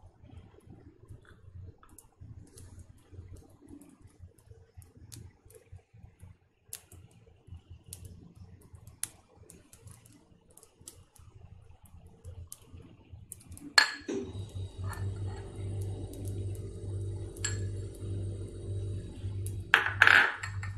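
Popping candy crackling, with scattered small sharp pops at irregular intervals. A loud click comes about fourteen seconds in, after which a steady low hum runs under the pops, and a louder knock comes near the end.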